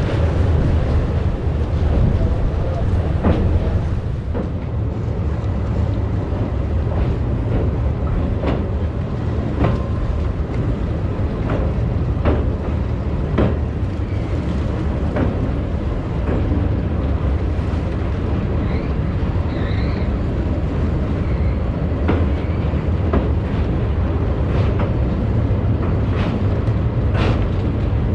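Passenger train running over a sea bridge: a steady low rumble with wind buffeting the microphone, and sharp clacks of the wheels over rail joints every second or two.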